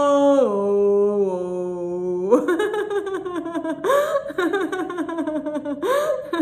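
A woman's laughter-yoga "ho" laughter: a long held "hooo" that drops in pitch about half a second in, then quick, rapid "ho-ho-ho" laughing broken twice by sharp in-breaths.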